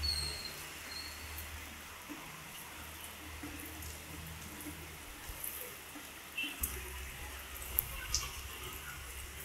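Heavy rain falling steadily, an even hiss of water, with a low rumble that comes and goes and a few sharp drips or taps close by, the strongest about eight seconds in.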